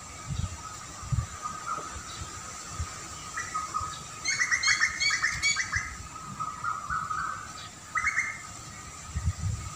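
Birds chirping: a quick run of short, rapid chirps about four seconds in, lasting about two seconds, then a single short call near eight seconds.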